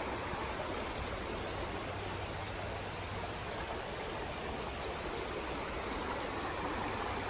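Shallow creek water rippling and rushing steadily over flat bedrock.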